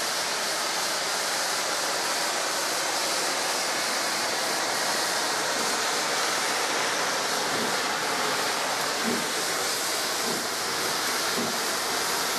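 Steady, loud hiss of steam escaping from LMS Princess Coronation Class Pacific 46233 Duchess of Sutherland, blowing out low around its cylinders and driving wheels.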